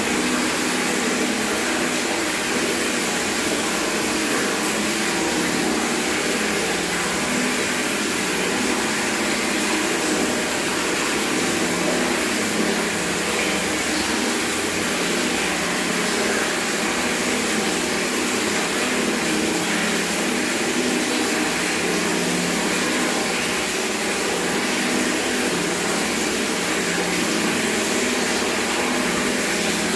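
Tap water running steadily from a bathroom tap straight into a bucket, a continuous even splashing with no change in level.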